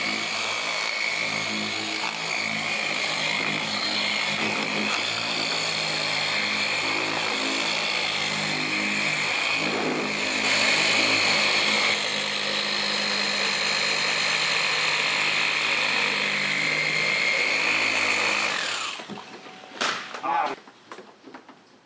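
Electric orbital polisher with a foam pad running steadily on a car's painted panel, a whining hum that cuts off about nineteen seconds in. A few light knocks follow.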